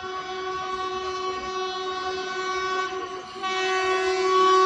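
Electric train's air horn sounding two long, steady multi-tone blasts: the first breaks off about three seconds in, and the second, louder one starts just after.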